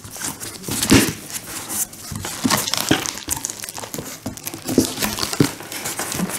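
Cardboard box flaps being folded open and plastic bubble wrap crinkling as hands handle it: irregular rustles and crackles, loudest about a second in.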